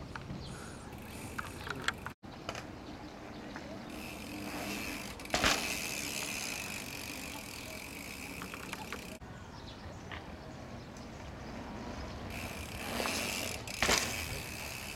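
Mountain bike rolling over brick paving with the rear hub's freewheel buzzing as it coasts. A sharp clatter comes about five seconds in and again near the end.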